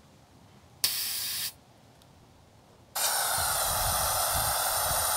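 Compressed air hissing at a truck tire's valve through an air-compressor hose chuck. A short hiss comes about a second in, then after a pause a steady, louder hiss with a whistling edge.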